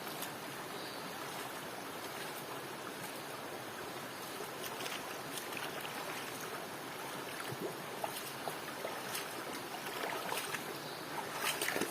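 Steady rushing of a flowing stream, with a few light clicks and knocks in the last few seconds.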